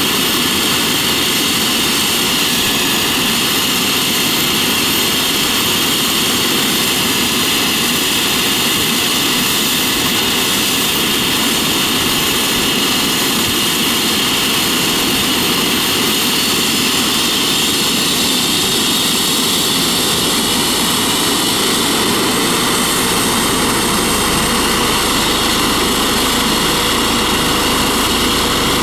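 Eurocopter EC135 T2+ helicopter running on the ground with its rotor turning: the steady whine of its twin Turbomeca Arrius 2B2 turboshaft engines over the rotor noise.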